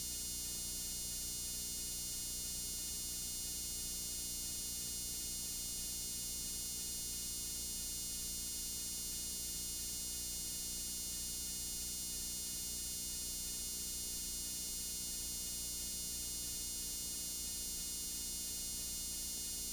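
Steady electrical buzz with hiss from a blank stretch of videotape playing back, with no program sound on it.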